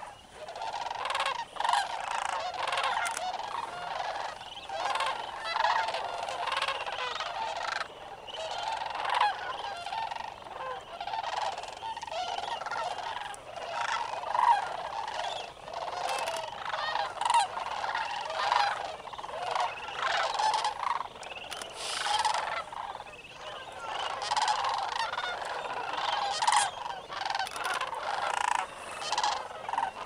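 A large flock of sandhill cranes calling, many calls overlapping in an unbroken chorus.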